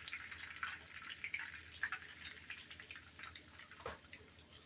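Hot oil in a frying skillet crackling faintly with scattered small pops, and a soft knock about four seconds in.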